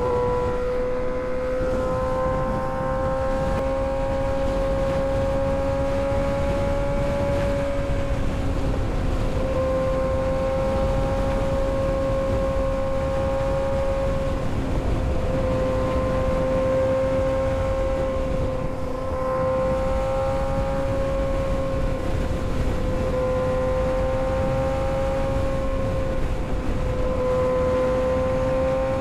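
Kawasaki ZX-6R 636 inline-four engine running at a steady high pitch while cruising, with wind rushing over the microphone. The tone holds nearly constant, with brief small dips a few times.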